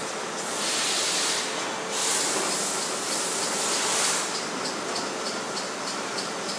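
Steady machine-shop noise from running machine tools, with two long hissing blasts like compressed air: one about half a second in lasting about a second, and one from about two seconds in lasting about two seconds. Faint rapid ticking follows near the end.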